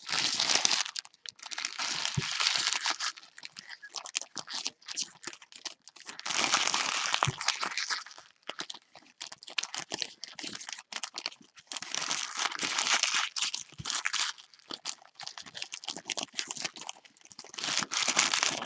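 Trading-card pack wrappers crinkling and tearing as the packs are opened by hand, in four bursts a few seconds apart with lighter rustling between.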